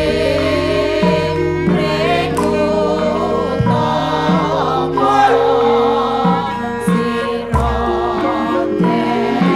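Central Javanese gamelan music accompanying a Srimpi dance: tuned bronze metallophones and gongs sound layered held notes, a hand drum strikes now and then, and a wavering sung vocal line runs above them.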